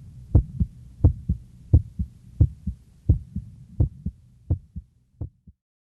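Low double thumps like a heartbeat, a strong beat followed by a weaker one, repeating about every 0.7 seconds. They fade and stop about five and a half seconds in.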